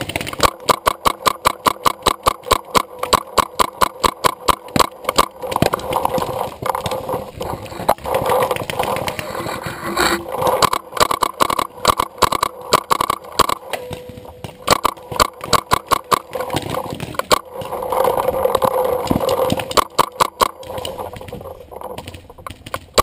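Paintball markers firing in rapid strings, several sharp shots a second, with short lulls; the firing thins out near the end.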